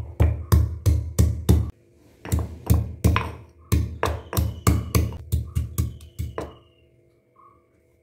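Stone pestle pounding ginger and garlic in a granite mortar: a run of heavy, dull thuds about three or four a second, with two short pauses, stopping about six and a half seconds in.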